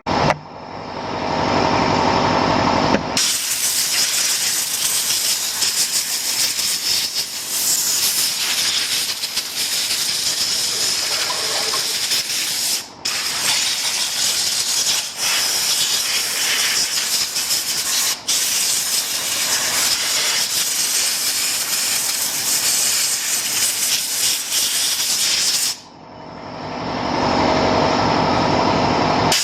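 Compressed-air blow gun blasting, a loud steady hiss broken by two brief pauses. At the start and near the end it gives way to a duller, lower rushing noise.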